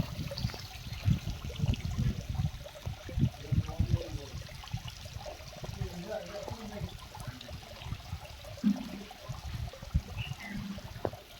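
Water splashing and trickling, with a run of low knocks or splashes in the first few seconds. Faint voices come in later.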